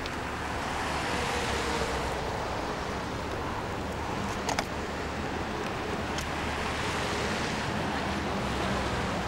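Steady city street traffic noise with wind, with two short sharp clicks, one about four and a half seconds in and a fainter one about six seconds in.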